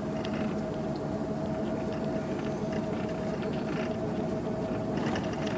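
A vehicle driving along steadily: an even engine and road noise with a constant hum.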